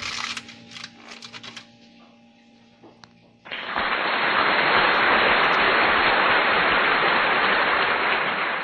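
A few light clicks and rattles over a faint steady hum, then, about three and a half seconds in, a loud steady hiss begins and holds.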